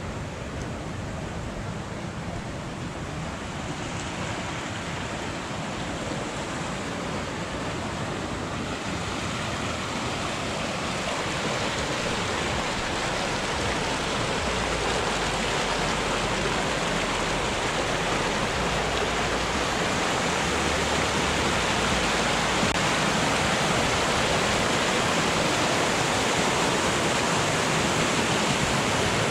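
Small mountain river rushing over little cascades, a steady wash of water that grows gradually louder.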